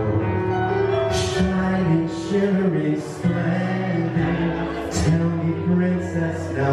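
Live piano-bar performance: a baby grand piano playing chords and held notes with a singer's voice over it, amplified through the room's speakers.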